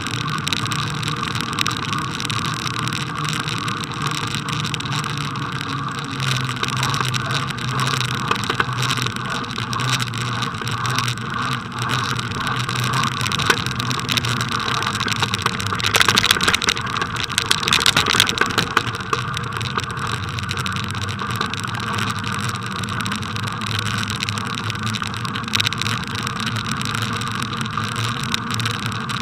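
Bicycle riding over packed snow, heard through a camera mounted on the bike: a steady rumble and hiss of tyres and road vibration, with many small rattles and knocks that grow busier and louder a little past the middle.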